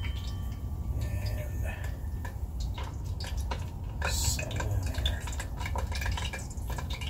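Hot oil in a Dutch oven crackling and popping as rolled tortillas fry, with a brief louder hiss about four seconds in.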